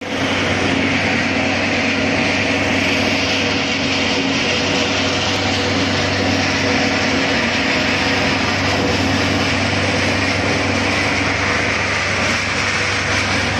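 Copper cable granulating and separating machine running: a loud, steady mechanical noise with an even hiss and a low hum underneath.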